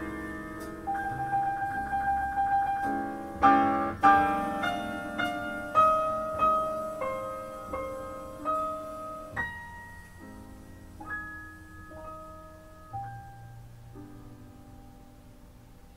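Recorded jazz piano playing through a hi-fi system with a 300B valve amplifier modified for stronger treble. Chords and single notes ring out, growing sparser and softer after about nine seconds as the piece winds down to its last quiet notes.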